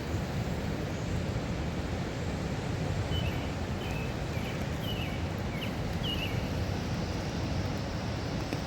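Steady outdoor background rumble, with a bird chirping several short times in the middle.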